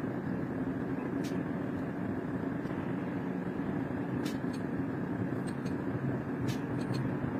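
Steady background noise of a workroom, an even rumble with no changes in level, with a few faint, light clicks scattered through it.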